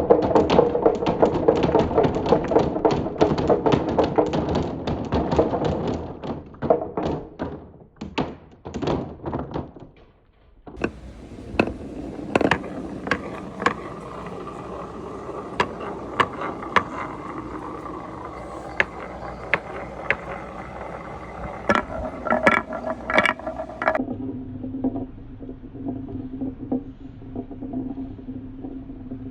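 Balls rolling and clattering down a marble run. A dense stream of clicks over a rolling rumble thins out and stops about ten seconds in. Then comes more rolling with scattered sharp clicks, and near the end a steady low rolling hum.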